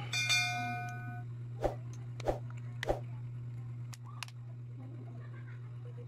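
A short metallic clang that rings for about a second. It is followed by three sharp snaps about half a second apart as the smartphone's back cover clips into the frame.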